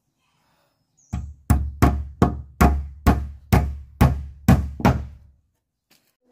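A hammer strikes about ten heavy blows in quick succession, two or three a second, beginning about a second in: hammering on the house's construction.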